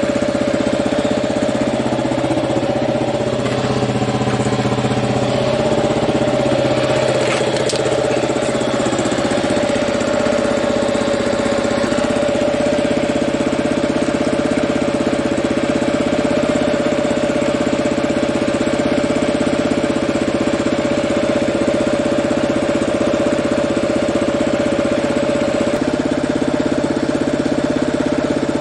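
Kawasaki KLR650's single-cylinder four-stroke engine, fitted with a Lexx aftermarket exhaust, idling steadily to recharge its flat battery.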